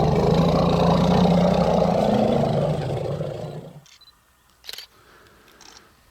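Safari vehicle's engine running loud and steady as the vehicle moves off, cut off suddenly about four seconds in; a few faint clicks follow.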